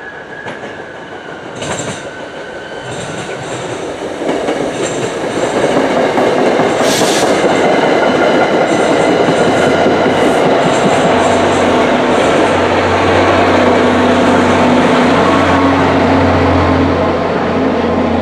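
MBTA Commuter Rail push-pull train of Rotem bilevel coaches and an EMD GP40MC diesel locomotive passing through without stopping. Wheels rumble and clack over the rail joints, growing louder over the first several seconds. A steady low diesel engine hum builds in the second half as the locomotive goes by, then the sound falls away sharply at the end.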